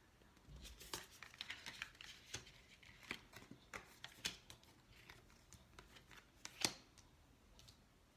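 Tarot and oracle cards being handled: faint, scattered clicks and snaps of card against card, with one sharper snap a little after six and a half seconds in.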